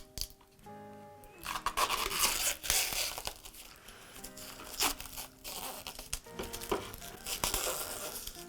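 Background music, with crinkling, tearing and clicking handling noises over it, loudest from about one and a half to three and a half seconds in.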